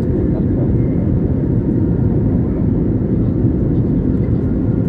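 Jet airliner cabin noise in cruise flight: a steady, loud low rumble of engines and rushing air with no change.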